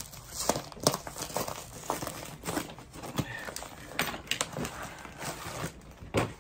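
Plastic mailing package being handled and opened, crinkling and rustling with many irregular sharp crackles.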